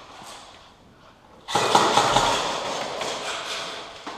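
Rapid full-auto airsoft gunfire: a long burst tailing off, a short lull, then another long burst starting abruptly about a second and a half in and fading near the end.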